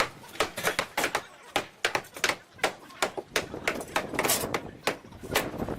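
A rapid, irregular run of sharp knocks and clicks, about three or four a second.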